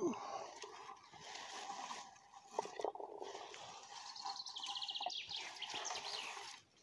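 Bilberry bushes rustling as a hand-held, comb-toothed berry picker is drawn through the leaves and stems, with a few light clicks. About four seconds in a bird gives a short falling trill.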